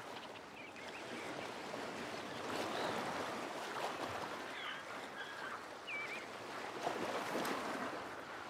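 Steady rushing of surf, with a few faint, short, high chirps on top.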